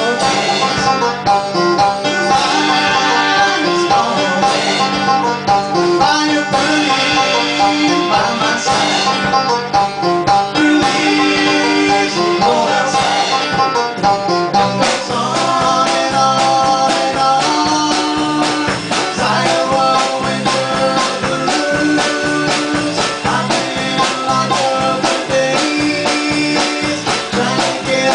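Live band music: several guitars strummed and picked together.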